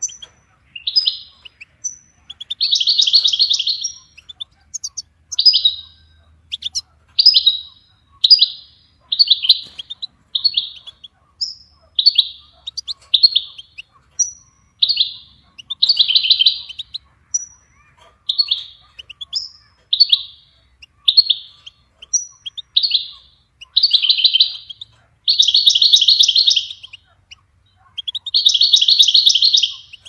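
Goldfinch song: short, high chirping phrases about one a second, broken up by several longer trilled phrases, the longest ones near the end.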